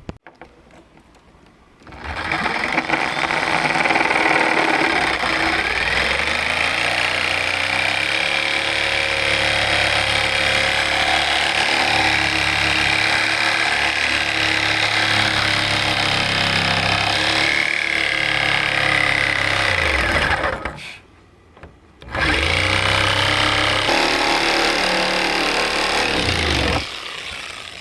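Power saw cutting through a car's ram air hood. It makes one long cut of about eighteen seconds, stops briefly, then cuts again for about five seconds, its pitch wavering as it works.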